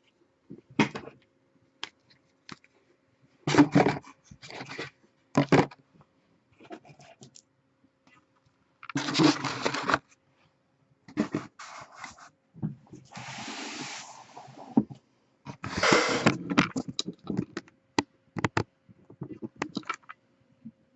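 Trading cards, card boxes and pack wrappers handled on a table: scattered scrapes, rustles and clicks, with a smoother rustle near the middle.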